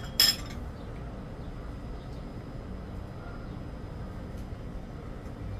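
Cutlery clinks twice against a ceramic bowl in quick succession at the start, over a steady low background rumble.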